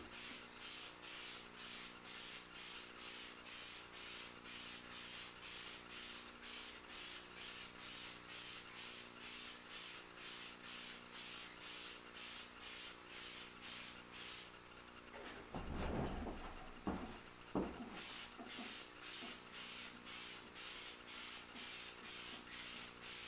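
Aerosol spray lacquer can hissing in even pulses, about two or three a second, as it is swept back and forth in passes. The spraying stops for a few seconds past the middle, where there are a few knocks and handling noises, then starts again.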